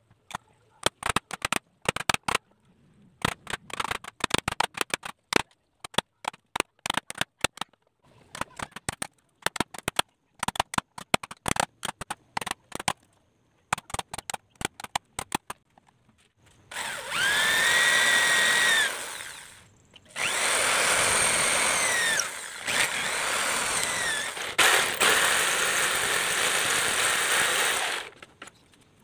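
A chisel struck with a hammer in quick volleys of sharp knocks, chopping out notches in a wooden board. About 17 seconds in, an electric jigsaw starts cutting the board, its motor whine rising as it gets going. The jigsaw runs in several stretches with short breaks and stops near the end.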